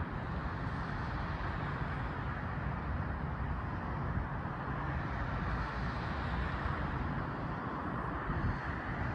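Steady traffic noise from cars on a nearby road, an even rumbling hum with no distinct events.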